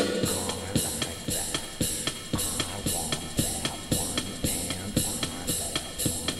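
Music with a steady drum-kit beat, about two beats a second.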